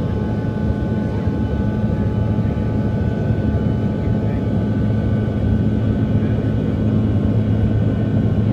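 Steady cabin noise of a Bombardier CRJ1000 in flight: a low rush of air and the hum of its rear-mounted turbofan engines, with a few faint steady whining tones above.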